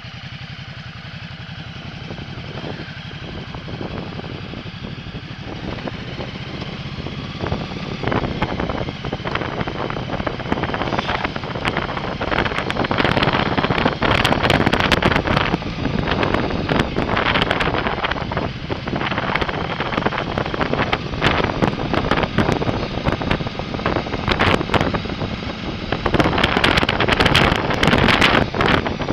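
Ducati Multistrada motorcycle engine running as the bike rides off slowly, with wind buffeting the microphone. The wind grows louder over the first ten seconds or so as the bike picks up a little speed.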